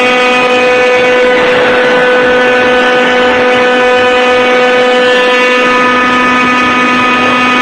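Rover CNC router's spindle running at speed: a steady whine with many even overtones. About a second and a half in, a brief rush of noise joins it.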